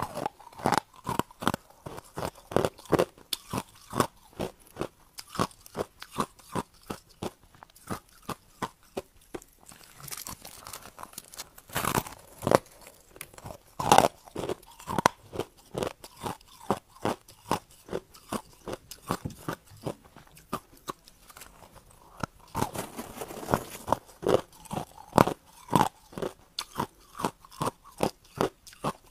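Compacted crushed ice being bitten and chewed: hard crunches, about two a second, with a few louder bites around the middle.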